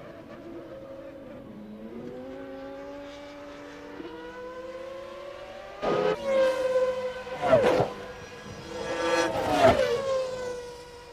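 1995 Formula One cars' engines: a steady hum at first, then about six seconds in cars pass close by at high revs, the engine pitch dropping sharply as each one goes past.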